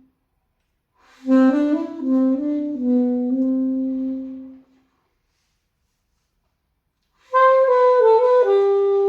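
Solo alto saxophone playing two slow phrases of held notes, separated by about two and a half seconds of silence; the first phrase moves around and settles on a long low note, the second is higher and steps down to a held note.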